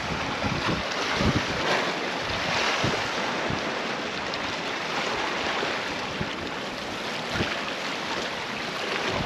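Small waves lapping and washing against the rocks at the water's edge, with wind buffeting the microphone in low thumps.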